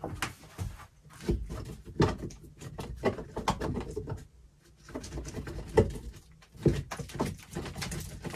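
Flat screwdriver scraping and clicking in a drilled hole through a wooden stud, clearing the hole so a wire can be fed around the corner: irregular small scrapes and knocks with short pauses.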